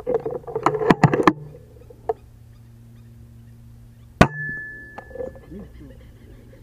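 A duck calls in a quick burst of several quacks, then about four seconds in a single sharp shot from an FX Impact M3 .22 PCP air rifle, followed by a brief high ringing tone.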